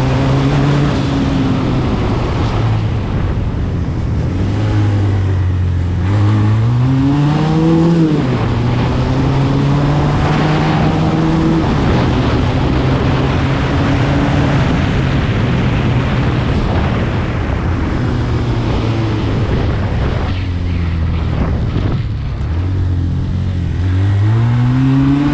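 SMC Barossa 250 quad's twin-cylinder 250 cc engine running under way. Its pitch climbs as it accelerates about six seconds in and drops sharply at a gear change. It then holds a steady note, sits lower for a few seconds, and revs up again near the end.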